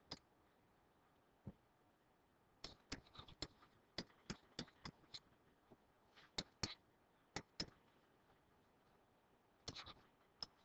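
Faint, short clicks and light scratches of a stylus tapping and stroking a writing surface while digits are written by hand, coming in small clusters with short pauses between them.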